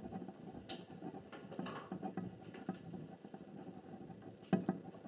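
Pen writing on paper: faint scratching strokes and light ticks as a short handwritten note goes down, with a slightly louder tap about four and a half seconds in.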